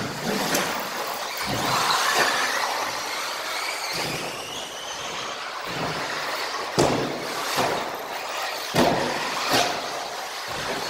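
Radio-controlled buggies running on an indoor carpet track, their high-pitched motor whine rising and falling with the throttle. Several sharp knocks and clatters in the second half come from the cars landing jumps and bumping along the track.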